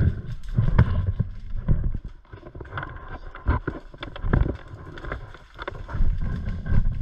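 Rumbling movement and wind noise on a body-worn camera's microphone, with scattered clicks and knocks throughout.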